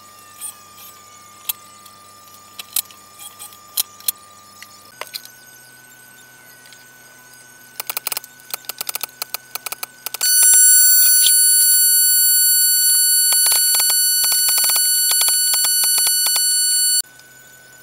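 A quick run of sharp clicks, then a loud, steady high whine that starts abruptly, runs about seven seconds and cuts off suddenly. The whine fits the air compressor that feeds the pneumatic nailer kicking on to refill its tank.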